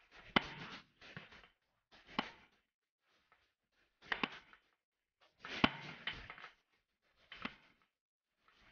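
Gunshots on a shooting range: about seven separate shots, irregularly spaced one to one and a half seconds apart, each a sharp crack with a short ringing tail. They are single shots, not an automatic burst.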